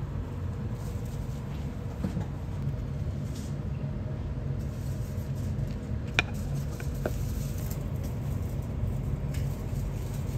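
Steady low hum of room noise, with two light clicks about six and seven seconds in.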